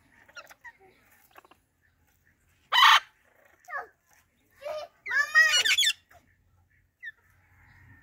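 Parrots calling: a loud harsh screech about three seconds in, then a few shorter squawks and a rapid run of rising, ringing notes a little after five seconds, with a short chirp near the end.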